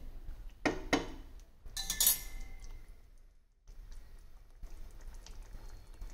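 A spatula clinking and scraping against a pan of thick chicken gravy as it is stirred: a few sharp clinks in the first two seconds, after which the sound drops away to a faint background.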